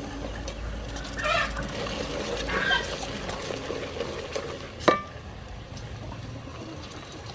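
Wooden spoon stirring green peppercorns into a thick palm-sugar sauce in a steel pot, in short scraping, sloshing strokes. One sharp knock with a brief metallic ring just before five seconds in, as the spoon strikes the pot.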